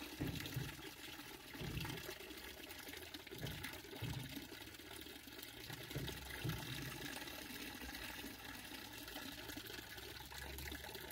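Faint, steady trickling of water in an ornamental fish tank, with a few soft low bumps.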